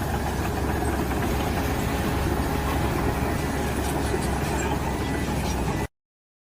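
A steady engine rumble, heaviest in the low end, that cuts off suddenly about six seconds in.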